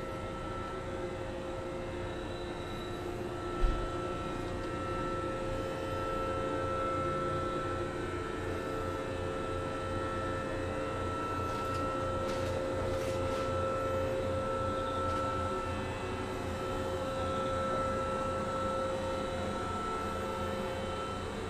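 Steady electrical hum and whine from the Tama Densha electric train's equipment as it stands at the platform. A single brief thump comes about three and a half seconds in.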